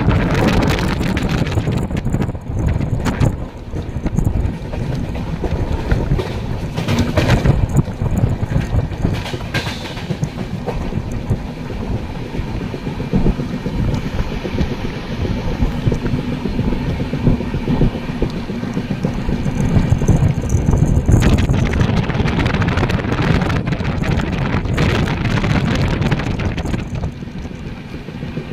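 Passenger train running at speed, heard from an open coach door: wheels rumbling and clattering on the track, with wind buffeting the microphone.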